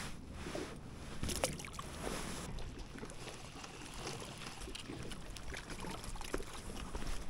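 Water sloshing and lapping, with scattered light knocks and clicks.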